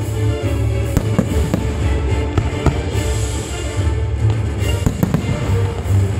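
Fireworks shells bursting in an irregular series of sharp bangs and crackles, over loud music with a heavy low beat.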